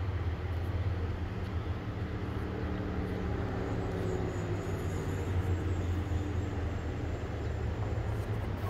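Low, steady rumble of vehicle engines, with a faint engine hum that swells and fades about halfway through.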